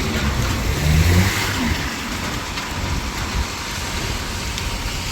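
A car passing on a rain-wet street, loudest about a second in, over a steady hiss of wet road and light rain.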